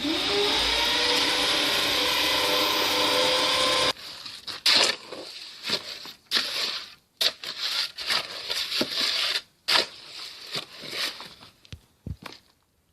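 A loud, steady hum and hiss that rises briefly in pitch as it starts and cuts off abruptly about four seconds in. Then irregular scrapes and knocks of a trowel working wet concrete between stones.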